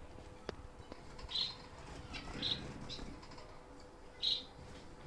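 Caged pet finches giving short, high chirps, three of them spaced about a second apart, with two light clicks in the first second.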